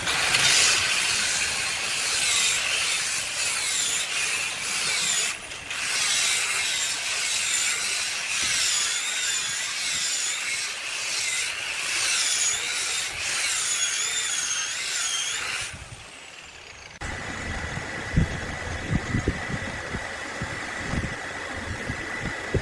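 Sawmill saw cutting through an oak log: a loud hiss with a wavering high whine, briefly breaking off about five seconds in. The cut stops about sixteen seconds in, followed by a steady high hum with scattered knocks.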